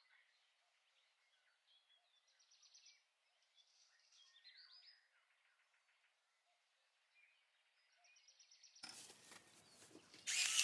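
Very faint, scattered high chirps and ticks. Then, near the end, a pepper grinder starts with a loud, steady whir.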